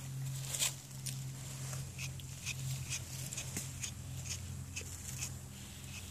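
A stripping knife rasping through a Norfolk Terrier's wiry coat, pulling out the old ripe hair in short scratchy strokes, about three a second and irregular. A steady low hum runs underneath.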